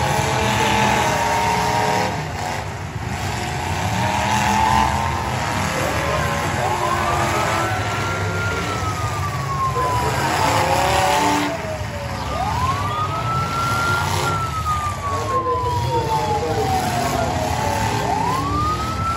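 Demolition derby cars' engines revving under a constant roar, and from about six seconds in a siren wailing three times, each wail rising quickly and then sliding slowly down.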